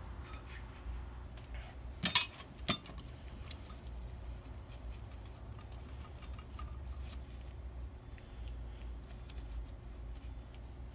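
Hand tools and small metal parts being handled: a sharp metal clank about two seconds in, a softer one just after, then faint scattered clicks over a low steady hum.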